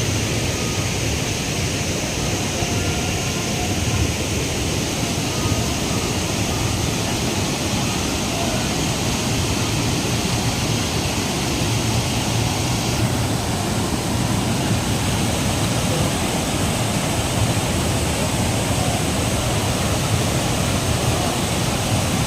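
Waterfall roaring: a steady, even rush of falling water.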